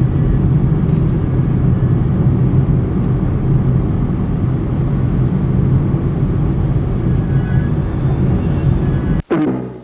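Steady drone of a car's engine and tyre noise, heard from inside the car while it drives on the freeway. It cuts off abruptly near the end, when music with a struck drum starts.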